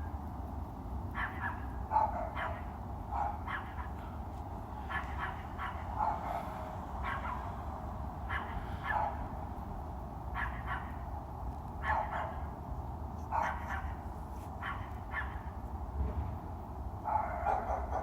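A dog barking repeatedly, short barks coming roughly once a second at an uneven pace, over a steady low rumble.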